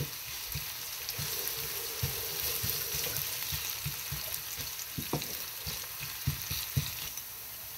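Sliced onions sizzling in hot mustard oil in a frying pan, stirred with a wooden spatula that gives short knocks and scrapes against the pan, more of them in the second half.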